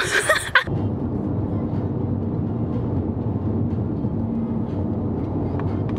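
Steady low road and engine noise heard from inside a car cabin while driving at highway speed, starting just after a brief voice cuts off.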